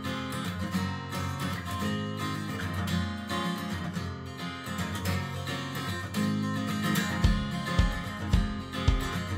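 Background music led by strummed acoustic guitar; a steady low drum beat comes in about seven seconds in.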